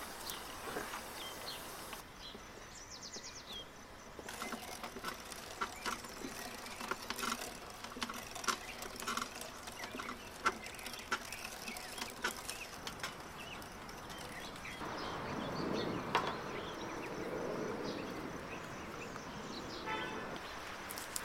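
Hand-cranked metal Star meat grinder mincing raw meat: irregular clicks and soft squishing as the meat is pressed through the plate. A bird chirps faintly a few seconds in.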